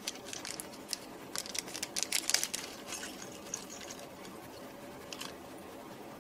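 Plastic parts bag crinkling as it is handled and shaken, with a flurry of small clicks and rustles loudest about two seconds in as small electronic components spill out onto the work mat, then a few scattered clicks.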